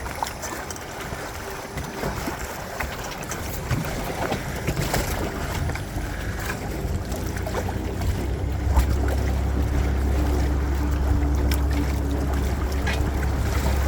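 Wind on the microphone and water washing past a Windrider 17 sailing trimaran under way. About halfway through a steady low hum comes in and the sound grows louder.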